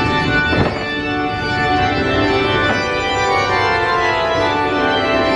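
Organ music from a dark ride's soundtrack, playing slow sustained chords.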